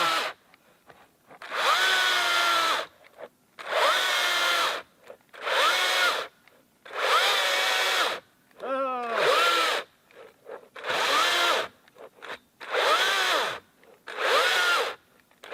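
Makita XCU04 36V cordless chainsaw's electric motor running in short bursts of about a second, roughly every two seconds, its pitch rising at the start of each burst and falling at the end. The saw is near the end of its battery charge, getting tired partway through a cut.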